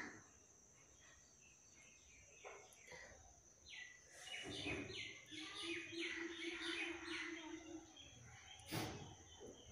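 Outdoor ambience: a bird giving a run of rapid repeated chirps for a few seconds in the middle, over a steady high-pitched whine. Two short, sharp noises stand out, one about four and a half seconds in and one near the end.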